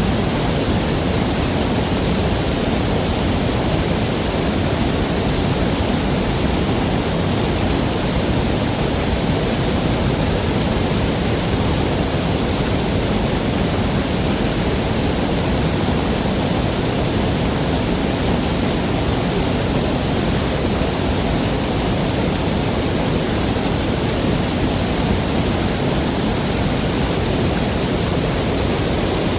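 Waterfall rushing steadily: a loud, even roar of falling water without a break.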